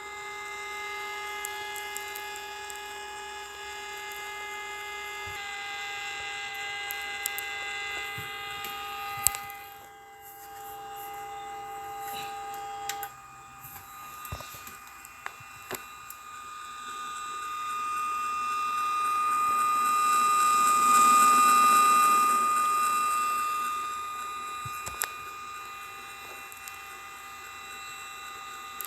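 Radio putting out weird electronic sounds: several steady tones held at once, jumping to new pitches about five and thirteen seconds in, with scattered clicks. A swell of hiss builds to its loudest a little past twenty seconds, then fades.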